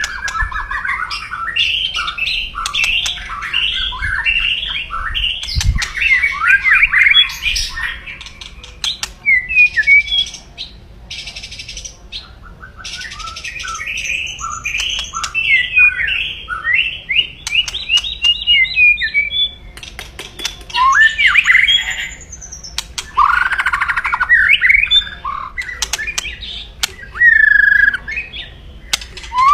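White-rumped shama (murai batu) calling loudly and aggressively in its 'kretekan' style: fast runs of crackling, chattering notes mixed with short whistled phrases and harsh rasping bursts. The calls come in bouts with brief lulls between them.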